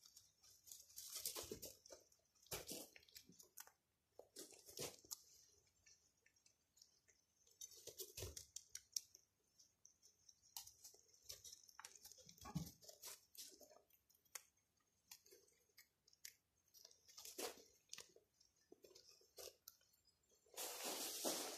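Young rabbits chewing fresh leafy greens and cucumber: faint, irregular crunches and small clicks, with a few brief rustles in wood-shaving bedding, the loudest near the end.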